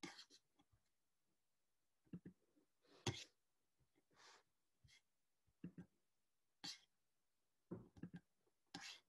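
Near silence, with dead quiet between faint short sounds: a few soft breaths and small clicks and knocks from someone at a computer.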